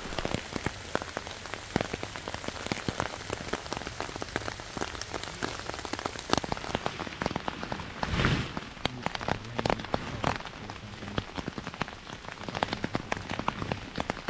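Heavy rain pouring down: an even hiss with many sharp, close drop hits. A brief low rumble about eight seconds in.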